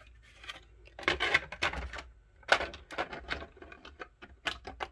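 Irregular clicks and knocks of a 3D-printed plastic cover being set down and fitted over an Enigma machine replica's rotor mechanism. The loudest knock comes about two and a half seconds in.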